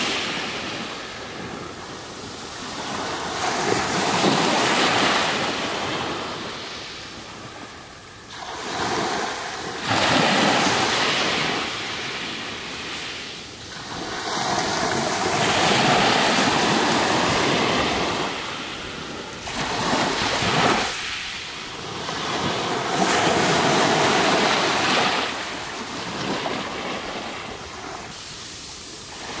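Small waves breaking and washing over a pebble beach. The rush of water and pebbles swells and fades in surges every five or six seconds.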